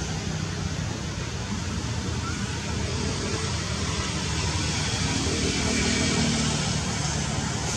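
Steady outdoor background noise, a rushing hiss with a faint low hum that shifts in pitch about five seconds in.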